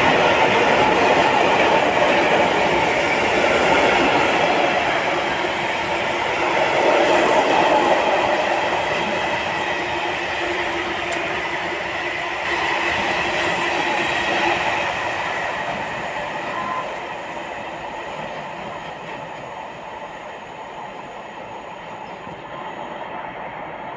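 Freight train of steel hopper wagons rolling past, a steady rumble of wheels on the rails that fades gradually as the train moves away.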